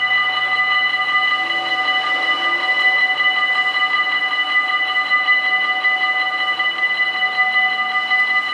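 Electric warning bells of a Dutch automatic half-barrier level crossing, ringing steadily in a fast, even clatter of bright metallic tones. They warn of an approaching train while the barriers come down.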